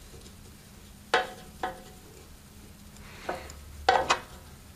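Steel screwdriver clinking against a Tecumseh carburetor's jet adjustment screw as the screw is turned all the way in to reset it: about five sharp metallic clicks, spaced unevenly.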